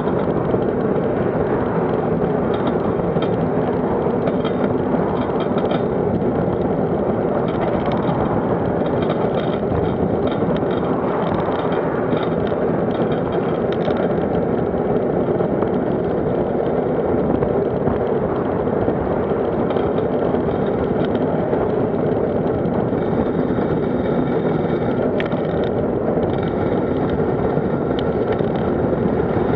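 Steady rushing road noise of travelling along a road, with no change in level.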